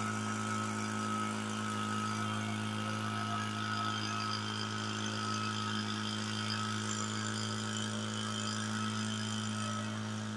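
Farmertec backpack leaf blower, a clone of the RedMax EBZ8500 with a two-stroke engine, running steadily at an even pitch while blowing leaves.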